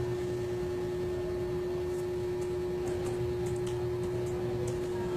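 Room tone: a steady low hum, with a few faint clicks from about two seconds in.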